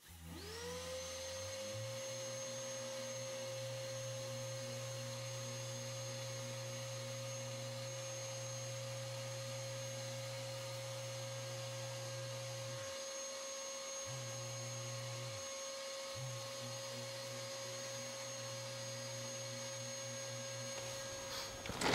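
Mirka electric random orbital sander with dust-extraction hose spinning up and running steadily, a high motor whine over a low hum, as it sands car paint with 500-grit abrasive in the last sanding stage before painting. The low hum drops out briefly twice past the middle, and the sander stops near the end.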